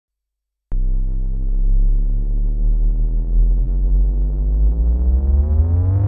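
Novation Bass Station II analog monosynth sounding a low, distorted note rich in overtones. It starts abruptly just under a second in, and its pitch rises slowly, gliding upward faster near the end.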